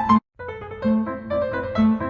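Instrumental background music with a piano-like keyboard playing a stepping melody over a repeating low note. It cuts out completely for a moment a fraction of a second in, then carries on.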